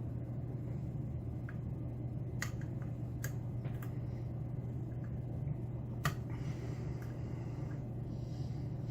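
Faint, scattered clicks and ticks of a lock pick working the pins of a Mauer SKG dimple lock under light tension, over a steady low hum.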